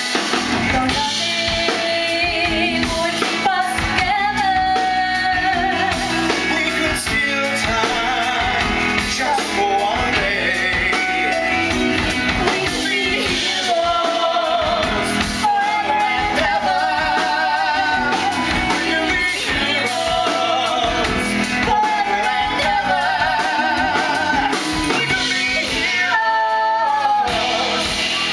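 Singing with band accompaniment, held notes wavering with vibrato over drums and instruments; the accompaniment drops out briefly near the end.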